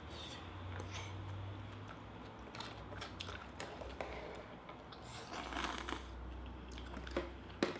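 A person eating spicy hot pot close to the microphone: quiet chewing with a few small clicks, and a short slurp about five seconds in as the bowl is brought to the mouth.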